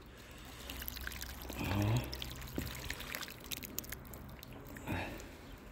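Something being poured, a faint stream with many small clicks, as food or liquid goes into a container; a brief low voice sound comes about two seconds in.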